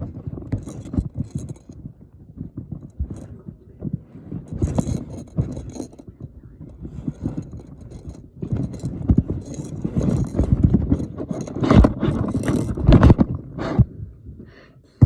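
Clicking, knocking and scraping of small objects being handled close to the microphone, a busy irregular clatter that grows louder and denser about halfway through.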